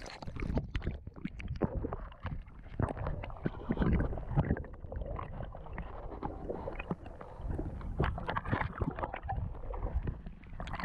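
Creek water heard through a submerged camera's microphone: muffled gurgling and low rumbling, broken by many small knocks and clicks.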